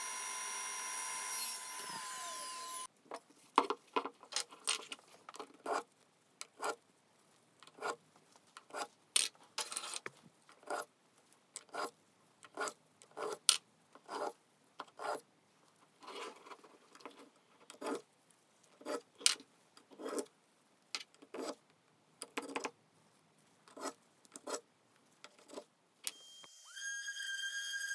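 A metal hand plane being handled and its blade adjusted: a long run of irregular sharp metallic clicks and knocks, a few a second. Before that, the miter saw's motor whine falls in pitch and cuts off a few seconds in.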